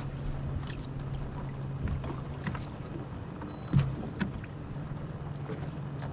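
A bass boat's motor humming steadily, with scattered light clicks and knocks on the boat and a louder thump about four seconds in.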